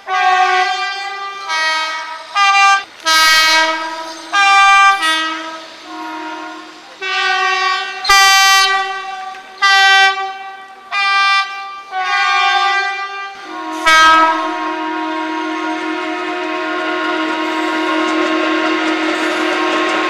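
Train horns in a 'horn war': a rapid run of short toots of varying length that switch between two pitches, then one long two-note blast held after about fourteen seconds.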